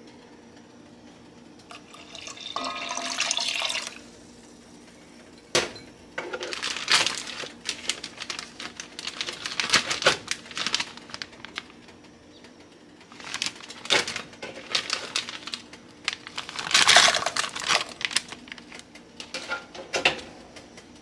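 Shoyu poured from a glass measuring cup into a cooking pot, a splashing pour lasting about two seconds. Then sliced fresh ginger is dropped into the liquid in several irregular splashing bursts, with a sharp click near the start of them.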